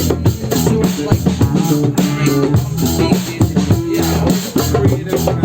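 Live band jamming: a drum kit playing with plucked guitar lines and sustained low notes underneath.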